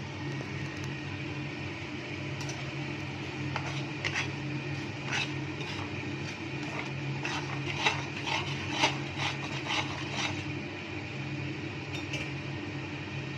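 Metal utensil clinking and scraping against a cooking pan in irregular clusters of clinks, the loudest about eight and nine seconds in, over a steady low hum.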